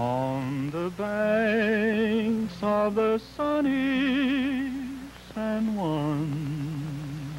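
A man's voice singing a slow, wordless melody in several long held notes with wide vibrato, sliding up into the first note and down between phrases.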